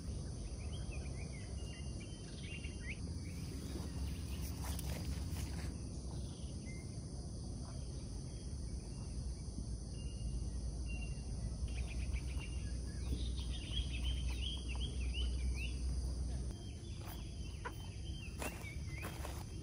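Rural outdoor ambience: birds chirping in short quick runs now and then over a steady high insect drone, with a low rumble underneath that drops away suddenly near the end.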